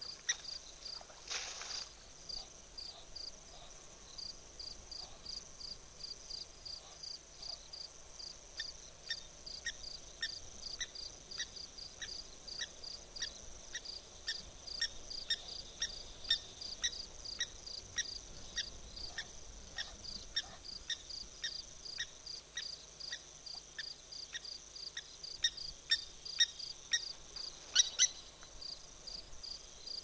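Night insect chorus: a steady high-pitched trill with short chirps repeating evenly a few times a second. A brief louder sound comes about a second and a half in, and another, the loudest, near the end.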